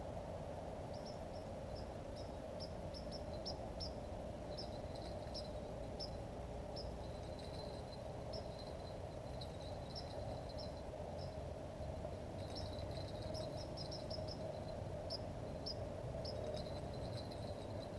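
Crickets chirping in short, irregular runs of high chirps over a steady low rushing background.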